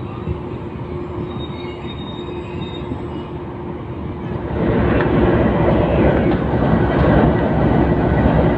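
GE C20EMP diesel-electric locomotive and its train rolling slowly along a platform, with a faint high wheel squeal. About four and a half seconds in, the sound turns louder and denser: the locomotive's running noise heard close up from on board.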